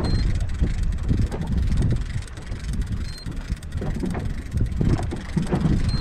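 Wind buffeting the microphone aboard a small boat at sea, a loud low rumble that rises and falls in gusts. A short high beep sounds about every three seconds, three times in all.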